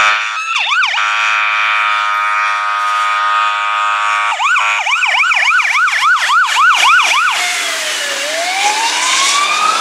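Fire truck siren sounding as the tanker passes: a steady horn tone held for about three seconds, then a fast yelp of about three or four sweeps a second, then a slow wail that dips and climbs again near the end.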